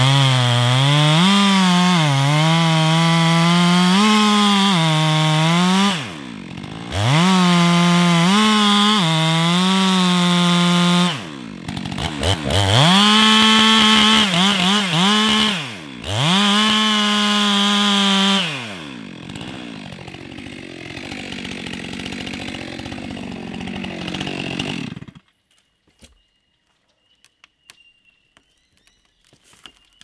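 Stihl MS 462 C-M single-cylinder two-stroke chainsaw at full throttle cutting into dead red gum, its pitch sagging and recovering under load. Three times it briefly drops off the throttle and revs back up, then it settles to idle and is shut off, leaving near silence with faint clicks.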